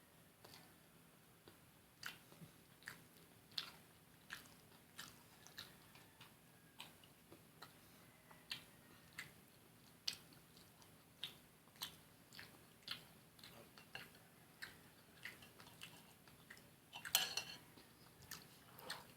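Close-up mouth sounds of eating fried fish and rice: a string of short, wet chewing clicks and crunches, one or two a second, with a louder crunching burst near the end.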